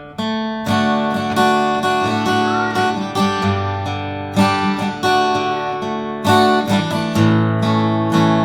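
Acoustic guitar strumming chords in a steady rhythm, the instrumental introduction to a worship song before the singing comes in.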